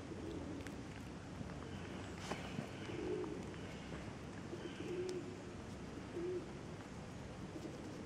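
Pigeons cooing: a few short, low coos spaced over several seconds, over a steady faint outdoor hum.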